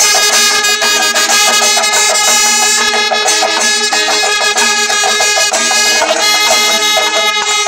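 Kerala temple ensemble playing: kombu horns blowing long held notes over the rapid, regular clashing of ilathalam hand cymbals.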